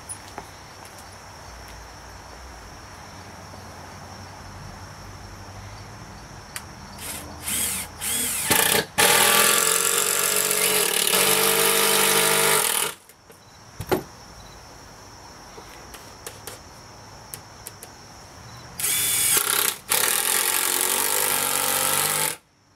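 Cordless drill driving screws into wood. It gives a few short blips, then a run of about four seconds, then two more runs near the end, each with a steady motor whine.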